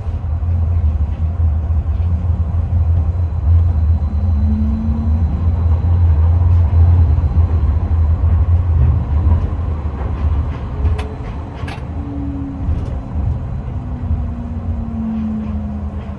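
Tram running along the track: a steady low rumble that swells and then eases, with faint gliding motor tones and a few sharp clicks about two thirds of the way through.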